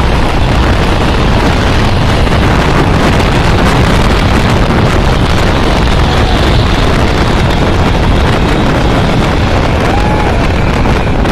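Massey Ferguson tractor diesel engines running hard under load as one tractor pulls another out of mud, with heavy wind buffeting the microphone.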